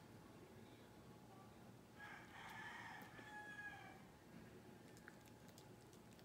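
A faint rooster crowing once, a single call of about two seconds starting about two seconds in.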